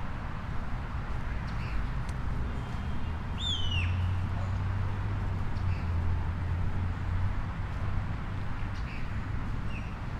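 Small birds chirping over a steady low rumble of distant city traffic, with one louder chirp sliding downward about a third of the way in.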